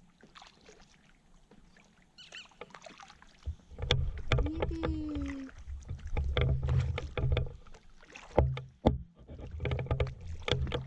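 Kayak paddling: paddle strokes splashing and sloshing water in uneven bursts, starting about four seconds in after a quieter stretch. A person shouts "Yippee!" about halfway through.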